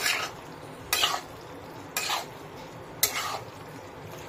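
A spatula stirring and tossing pasta in sauce in a black kadhai, scraping against the pan in short strokes about once a second.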